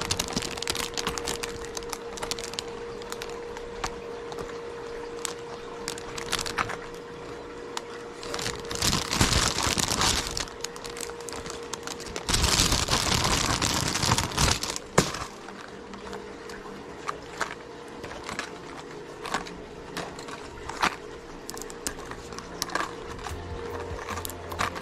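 Plastic packs of minnow lures crinkling and clicking as they are handled and hung on display hooks, with two louder spells of rustling about nine and thirteen seconds in.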